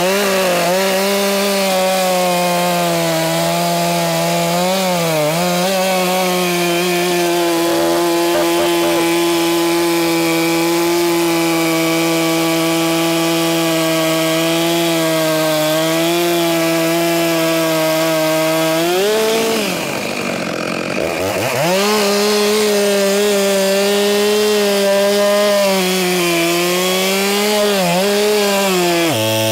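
Two-stroke petrol chainsaw at full throttle, its chain cutting through a poplar trunk with a steady high engine note. About two-thirds of the way through, the revs drop briefly and then climb back to full throttle as the cut goes on.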